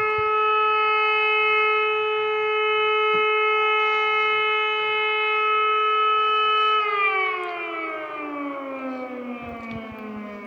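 Civil defense warning siren sounding a test signal: one steady, loud tone that about seven seconds in starts to fall in pitch and fade as the siren winds down.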